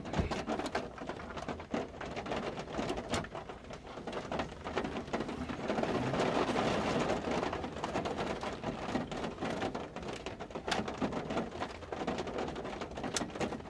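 Rain pattering on the truck's roof and windshield, heard from inside the cab as a steady hiss with scattered ticks of drops. A broader hiss swells for a second or two a little past the middle.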